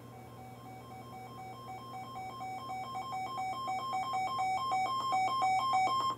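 Weather radio receiver's electronic alert alarm, beeping rapidly back and forth between two pitches. It grows steadily louder, then cuts off suddenly, sounding because a Special Marine Warning has been issued.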